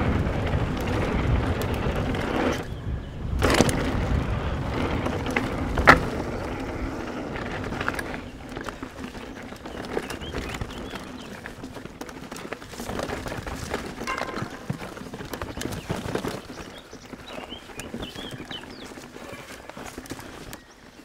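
Specialized Enduro mountain bike ridden down a dirt trail: tyre and wind noise with rattles and sharp knocks from the bike, loudest for the first several seconds and quieter after about eight seconds.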